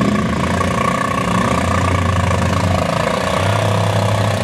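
ATV engine running steadily under load as it churns through deep mud, its note shifting up and down a little a couple of times.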